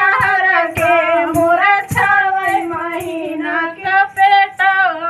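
A woman singing a Bhojpuri folk song without instruments, with sharp claps keeping time.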